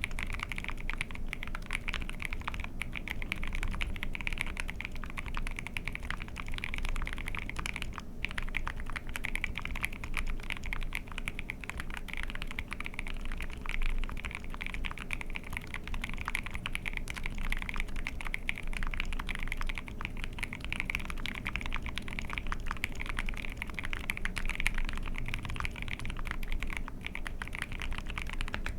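Continuous typing on an Ai03 Vega mechanical keyboard with a POM plate, Dinokeys Mint linear switches factory-lubed with Krytox 205g0, and GMK keycaps: a dense, steady stream of keystrokes.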